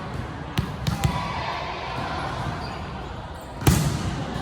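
Basketball bouncing on an indoor court: a few separate thuds early on and a louder single thud near the end, over the background noise of a gym.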